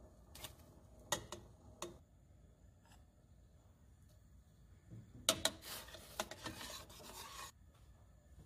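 A spoon scraping and pressing shrimp-and-fish paste into strips. A few light taps come in the first two seconds, then a stretch of scraping starts about five seconds in and lasts about two and a half seconds.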